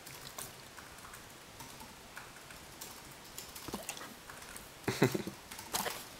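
A German shorthaired pointer's mouth and nose right at the microphone: scattered small clicks and smacks, with a louder cluster of knocks and rustling about five seconds in.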